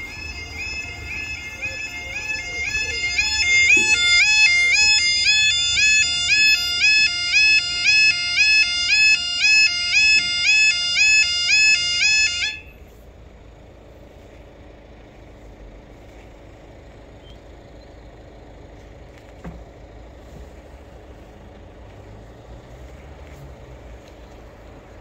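A level crossing's yodel alarms warble in a repeating two-tone pattern. They grow louder about three seconds in, then cut off suddenly about halfway through as the barriers finish lowering. After that there is only a faint, steady background.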